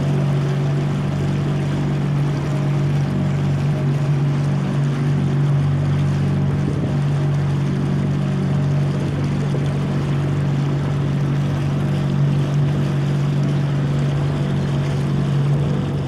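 Small boat's motor humming steadily at a constant low pitch, under an even wash of water and wind noise.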